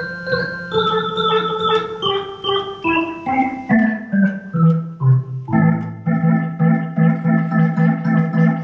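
Soviet Elektronika EM-141 Venta electronic organ playing a run of held chords that step down in pitch, then a lower chord that pulses evenly about three to four times a second.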